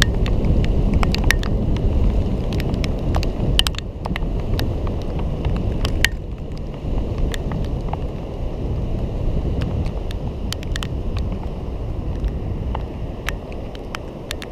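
Wind rumble and ride noise from an electric scooter rolling along a paved promenade, with many sharp clicks and rattles through the camera mount; the rumble eases off near the end.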